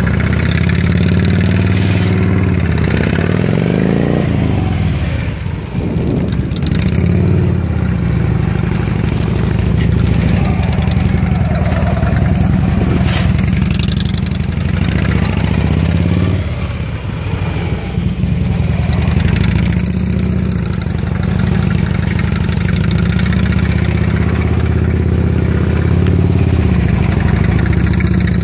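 Police touring motorcycle's engine running at low speed through tight cone turns. The revs rise and fall as the rider works the throttle, with a brief drop-off about two-thirds of the way through.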